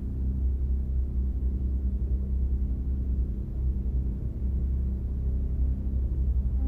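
Low, steady rumbling drone from a film soundtrack, its energy almost all in the deep bass.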